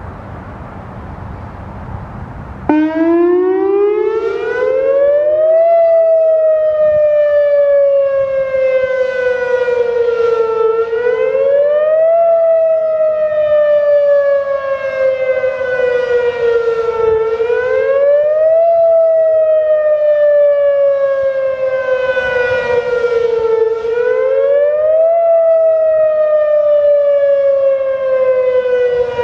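Whelen WPS 2810 electronic outdoor warning siren sounding its wail tone. After a few seconds of low background noise it comes in loud, and the tone rises quickly, then falls slowly, repeating about every six and a half seconds.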